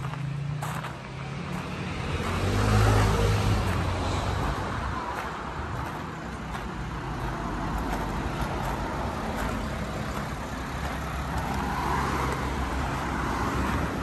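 Road traffic on a town street: a car passes close, its rumble rising to a peak about three seconds in and fading, followed by a steady wash of traffic noise.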